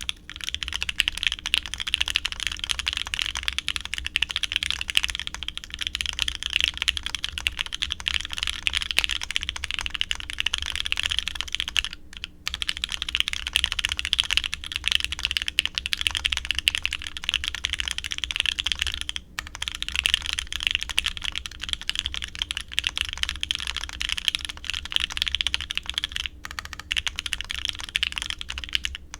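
Bear65 mechanical keyboard being typed on quickly and continuously: the clacks of lubed C3 Fierce Girls switches and GMK keycaps on a polycarbonate plate, with brief pauses three times.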